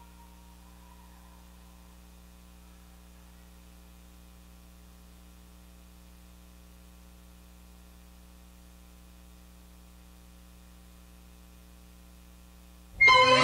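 Faint, steady electrical mains hum. Near the end, recorded orchestral music with strings starts abruptly and loudly.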